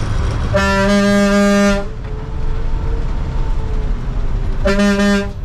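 Bus horn sounding two steady blasts, the first just over a second long and the second shorter near the end, over the low rumble of the bus engine.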